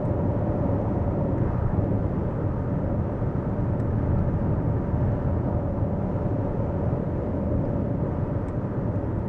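Steady tyre-and-wind road noise inside the cabin of a Lexus RZ 450e electric car cruising at motorway speed, with no engine sound and a faint steady hum.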